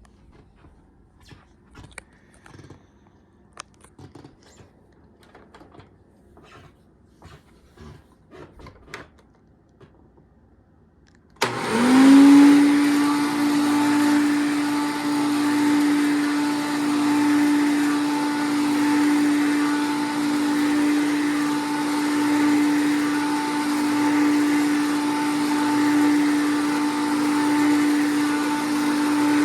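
Hoover Breathe Easy vacuum cleaner: a few faint clicks and knocks, then about eleven seconds in the motor switches on, whines up to speed and runs steadily, its level swelling and fading about every two seconds.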